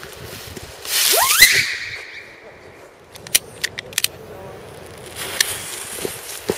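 Lesli Moskito whistling firework going off: a loud hiss about a second in with a whistle that rises steeply in pitch, then holds a high tone and fades out. A few sharp cracks follow around three to four seconds in, and another short hiss comes about five seconds in.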